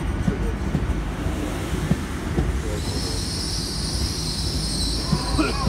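LNER Azuma train rumbling past the platform. About halfway through, a high metallic squeal from the train sets in and holds until near the end.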